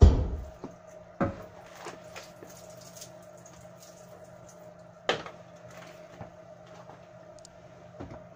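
The front radiator and heat-exchanger pack being pulled out and handled: a heavy thump at the start, then sharper knocks of the plastic-and-alloy assembly against the car's front end, about a second in and again about five seconds in, with a lighter knock near the end.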